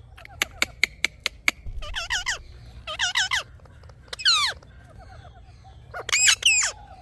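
Indian ringneck parakeets calling in short bursts of wavering, chattering calls, four bursts in all, the loudest near the end. The calls follow a quick run of about six sharp clicks in the first second and a half.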